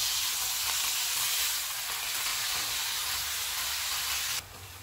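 Raw beef mince sizzling steadily in hot ghee in a wok on a high flame while being stirred and turned with a spatula. Near the end the sizzle drops suddenly to a much quieter hiss.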